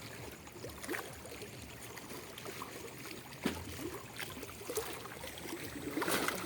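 Water dripping, trickling and splashing, with scattered small clicks. There is a sharp knock about three and a half seconds in and a louder splash near the end.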